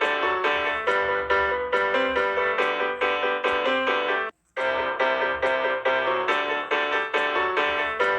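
Music: a repeating melody of short, evenly paced notes. It cuts out completely for a moment about four seconds in, then starts again.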